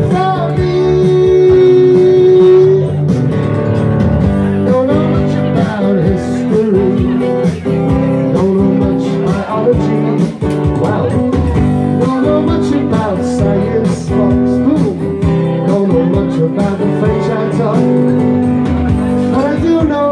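Live acoustic guitar strummed steadily, with a voice singing along; one long held note sounds near the start.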